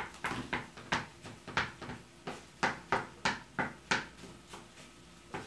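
Cooking utensils knocking and scraping against frying pans and a bowl while kimchi fried rice is stir-fried: a quick run of sharp clinks, about three a second, that stops about four seconds in.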